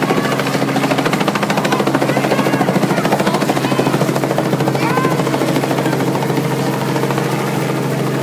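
Light two-bladed helicopter flying low overhead, its rotor beating in a fast steady pulse over the engine's drone, loudest in the middle.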